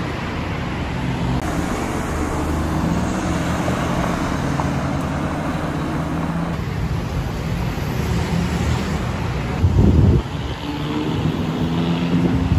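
Road traffic on a busy city street: cars, vans and motorbikes running past in a steady rumble, with a brief louder low rumble about ten seconds in.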